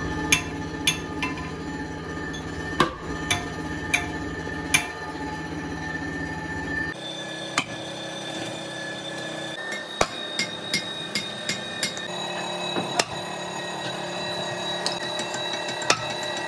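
Sledgehammer blows, a string of sharp, irregular strikes at about two a second, over a steady background hum.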